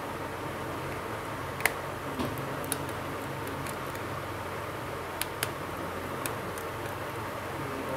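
Small sharp clicks and ticks, about six spread unevenly, as a precision screwdriver works the screws of a Redmi 9 smartphone during disassembly, over a steady low hum.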